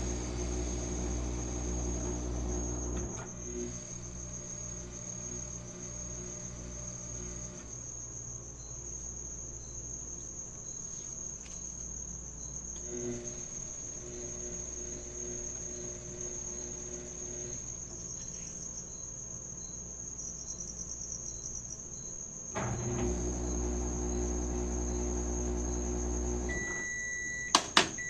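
Washing machine motor humming steadily, stopping after about three seconds, then starting again about twenty-two seconds in and running for some four seconds more, as in a wash cycle's on-off agitation. A constant high-pitched thin tone runs underneath throughout, and near the end come a few sharp clicks and a short electronic beep.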